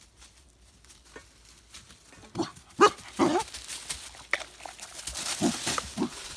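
A puppy whining and yelping: about two seconds of quiet, then a handful of short cries, one sliding down in pitch.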